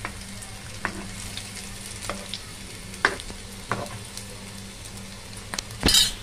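Minced-meat patties shallow-frying in hot oil in a pan: a steady sizzle. A few sharp clicks of a spatula against the pan come about a second apart, with a louder short burst of noise near the end.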